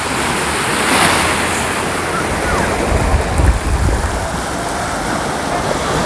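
Small waves washing onto a sandy beach: a steady surf hiss that swells about a second in. Wind buffets the microphone with a low rumble around the middle.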